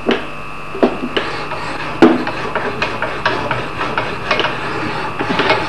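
A few sharp metal knocks, then a steady run of rubbing strokes, about three or four a second. The strokes come from a wet diamond-paper honing block on the arm of an axe filing jig being worked back and forth across an axe edge to stone it.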